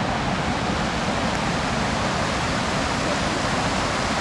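Steady rush of running water, with no breaks or distinct events.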